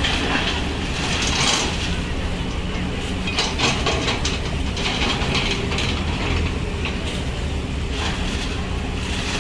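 Backhoe engine running steadily under a low hum, with repeated metallic clanking and rattling from the working arm and bucket.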